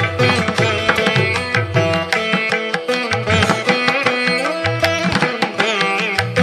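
Instrumental background music in an Indian classical style: a plucked-string melody over quick hand-drum strokes.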